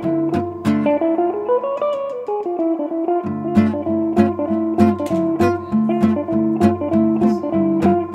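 Background music: a guitar-led instrumental with plucked notes over a steady beat. The bass drops out about a second in while a melody line climbs and falls, then comes back in just after three seconds.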